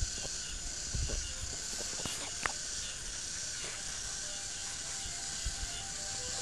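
Outdoor ambience: a steady high hiss with a few soft knocks and one short sharp click about two and a half seconds in.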